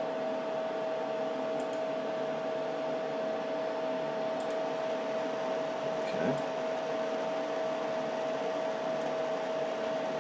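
Cooling fans of a running HP 54845A oscilloscope whirring steadily, with a constant high-pitched hum tone above the airflow noise. A short faint sound comes about six seconds in.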